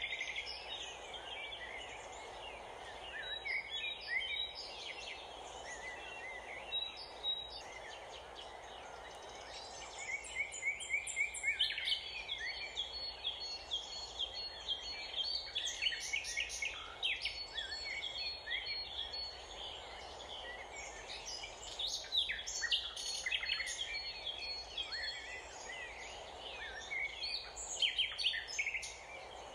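Several songbirds chirping and trilling over a steady background rush of outdoor noise. The calls grow busier from about ten seconds in.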